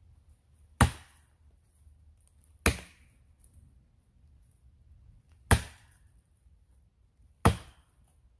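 A 4.5 lb Harbor Freight axe chopping into the trunk of a small maple, four sharp strikes about two to three seconds apart, each dying away quickly. The cut is most of the way through the trunk.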